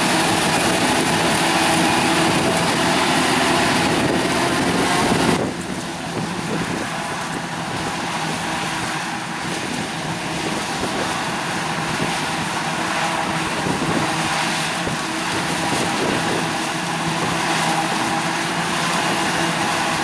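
Krone BiG X self-propelled forage harvester chopping maize and blowing it into a trailer, with the John Deere tractor pulling the trailer running alongside: a steady, heavy engine drone mixed with the rush of the chopped crop. About five seconds in the sound drops a little and becomes rougher as the view changes to another harvester-and-tractor pair.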